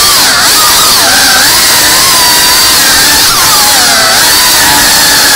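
FPV racing quadcopter's brushless motors and propellers, loud and whining, heard from the camera on board; the whine keeps rising and falling in pitch as the throttle changes in flight.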